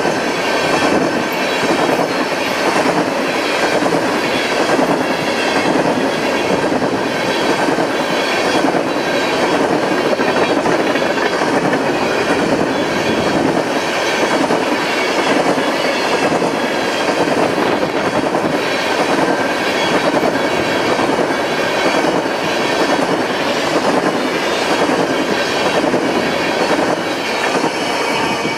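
Freight train cars rolling past at speed: a steady heavy rumble of steel wheels on rail, with a rhythmic clickety-clack about once a second as the wheels cross rail joints.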